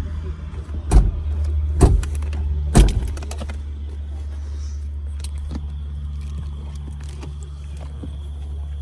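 Small turbocharged car engine running steadily, a low drone, with four sharp knocks or rattles about a second apart in the first three seconds.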